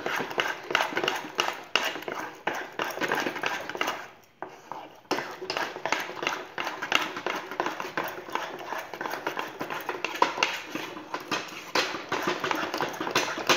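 Wooden spatula stirring thick, cooked besan batter fast in a non-stick saucepan: rapid scraping and tapping against the pan, with a break of about a second some four seconds in. The batter has thickened and is pulling away from the sides of the pan, the sign that it is done.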